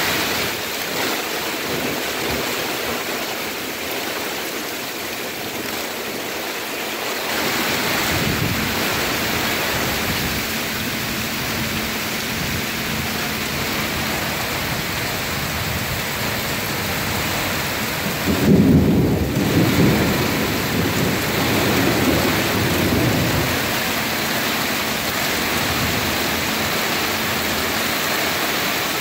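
Heavy rain pouring onto pavement and foliage, a steady hiss throughout. About two-thirds of the way through, a rumble of thunder rolls in and lasts several seconds, the loudest sound here.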